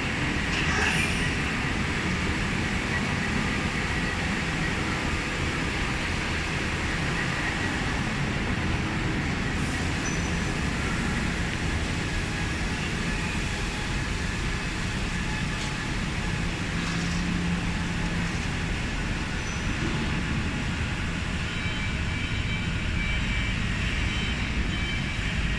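Steady industrial noise of a metal machining workshop, with machine tools running: a continuous low rumble under an even hiss, with a few faint steady tones.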